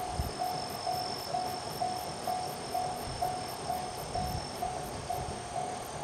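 Japanese railway level-crossing warning bell ringing in a steady beat of about two strikes a second, the signal that a train is approaching. A thin high steady tone runs alongside until about four and a half seconds in.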